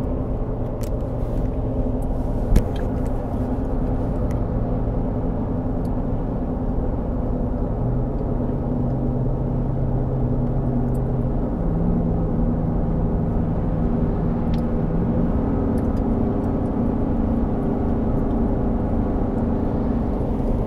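Car interior at highway speed: steady road and engine noise with a low hum that steps up in pitch a few times. There is one sharp click about two and a half seconds in.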